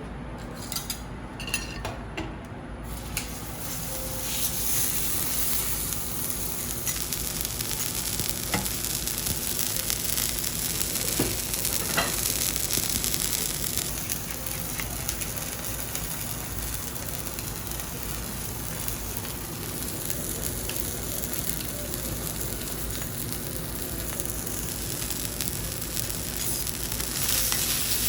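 Food sizzling steadily on a hot teppanyaki iron griddle. A few light clinks come first, then the sizzle rises about three seconds in and holds, with an occasional faint tap.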